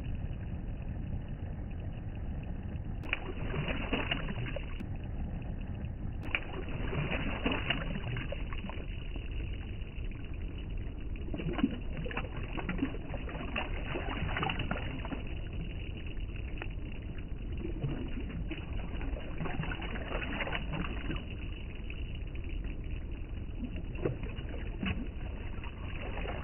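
Steady low outdoor rumble with scattered short knocks and rustles throughout.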